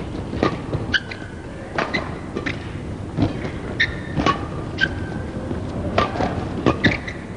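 Badminton rally: a quick run of sharp racket-on-shuttlecock hits, with footfalls and short squeaks of court shoes on the mat between them.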